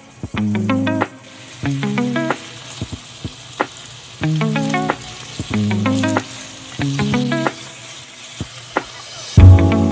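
Pork loin slices sizzling as they fry in oil in a pan; the sizzle sets in about a second in. Background music with plucked notes plays over it.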